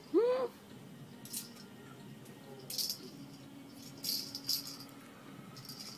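Cat toy ball with a rattle inside, jingling in short bursts, four or so, as a kitten bats at it. A short pitched squeal that rises and falls comes right at the start and is the loudest sound.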